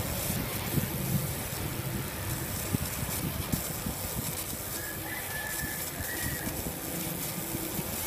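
Laser engraving machine running: a steady low mechanical hum with light, irregular ticking.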